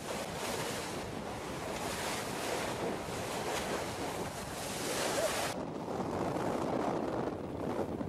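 Wind buffeting the microphone over the rush of sea water breaking and spraying past a moving boat's hull. About five and a half seconds in the hissy top drops away, leaving a duller rush.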